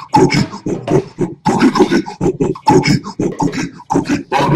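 Music with a fast, even beat, about six pulses a second.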